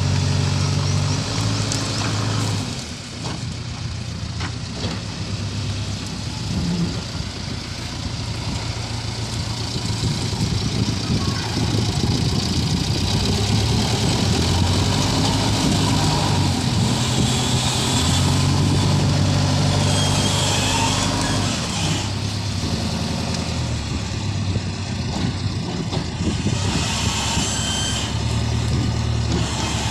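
Diesel engine of a JCB backhoe loader running steadily, its engine note stepping up and down several times as the machine works.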